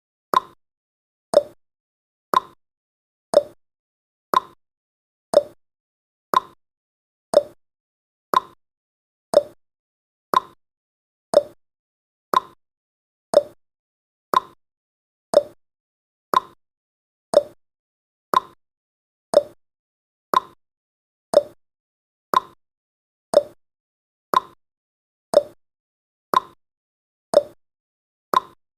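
Timer's clock-ticking sound effect: a short click every second, alternating between a higher and a lower pitch like a tick-tock.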